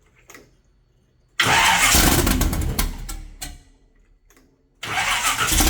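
Carbureted Camaro engine being started in two short attempts, each catching and running loudly for a second or two before dying away, with a quiet pause between.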